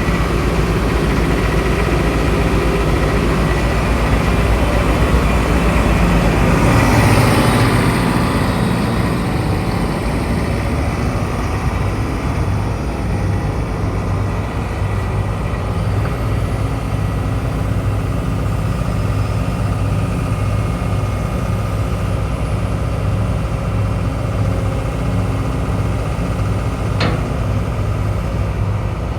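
Diesel engine of a Case CX210C excavator running steadily, with a rush of noise swelling and fading about seven seconds in, and one sharp click near the end.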